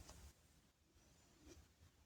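Near silence: room tone, with a couple of very faint soft ticks.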